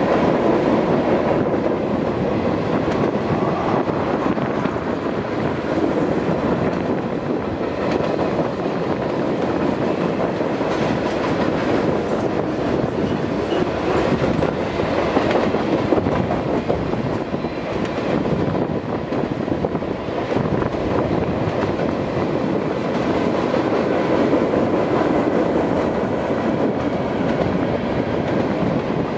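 Freight train cars rolling past at a steady pace, with a continuous rumble and the clickety-clack of wheels over the rails.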